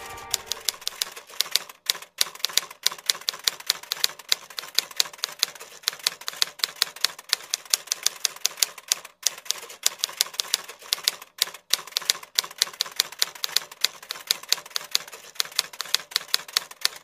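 Typing sound effect: a fast, uneven run of key clacks that accompanies on-screen text being typed out, stopping abruptly at the end.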